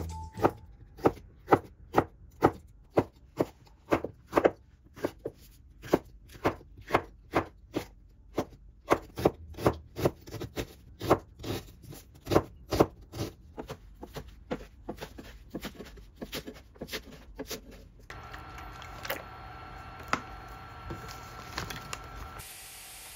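Kitchen knife slicing bell pepper and onion on a plastic cutting board: even cutting strokes about twice a second. Near the end the strokes stop, a steady hum with a few light knocks takes over, and a steady hiss starts just before the end.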